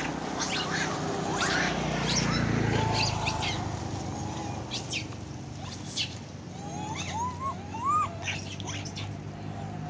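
Long-tailed macaques giving short high squeaks and chirps as they chase each other, with a run of rising-and-falling calls about two-thirds through. A low motorbike engine hum swells and fades in the first half.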